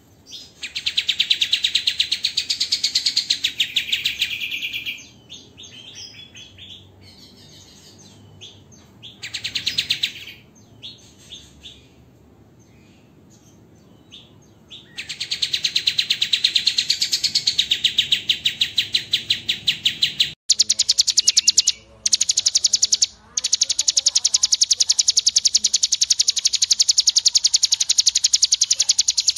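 Songbird 'tembakan' calls: harsh, machine-gun-like trills of very fast repeated high notes in long bursts, with quieter gaps between. About two-thirds of the way through, the sound switches abruptly to a denser, higher rattling trill that runs with two brief breaks.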